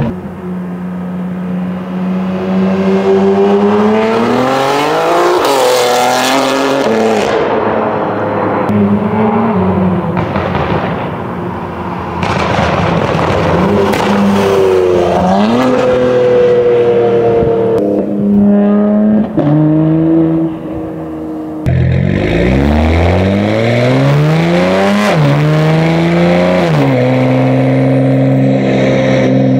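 BMW G80 M3's twin-turbo inline-six through a full titanium exhaust with catless downpipes, accelerating hard through the gears. The engine note climbs and drops back at each upshift. About three-quarters of the way through the sound cuts abruptly, and the engine pulls again from low revs through two more shifts before settling to a steady note.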